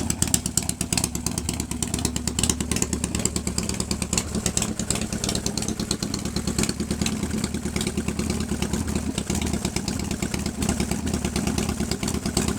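A 1997 Harley-Davidson Fat Boy's Evolution V-twin idling steadily with an even beat of firing pulses. It is running evenly again after a fuel-starved hard start, which the owner puts down to an air pocket in the fuel line and an empty Mikuni float bowl.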